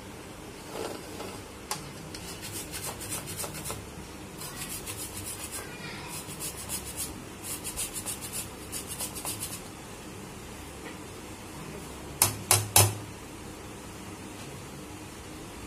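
Small metal hand grater rasping in quick repeated strokes, about four a second, as something is grated over a steel bowl. About twelve seconds in come three loud knocks in quick succession, the grater being tapped against the bowl.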